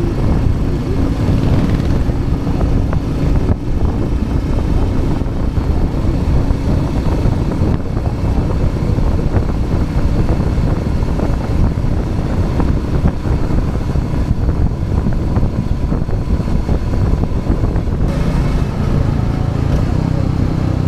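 Royal Enfield Classic 350's single-cylinder engine running steadily while riding, mixed with heavy wind and road noise. Its note shifts about 18 seconds in.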